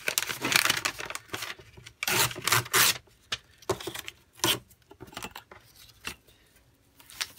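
Sheet-music paper being torn against a ruler edge and handled: a run of short papery rips and rustles, loudest in the first three seconds, then a few softer ones.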